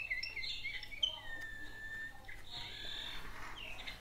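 Recorded songbird song played back from a bird book's audio pen: a string of quick high chirps and whistles, with one long even whistle about a second and a half in.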